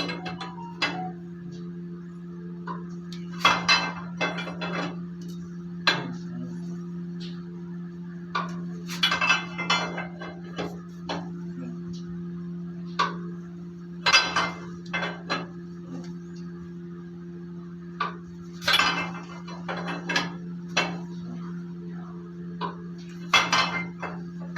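Metal tools and engine parts clinking and knocking against each other in short clusters every few seconds, over a steady low hum.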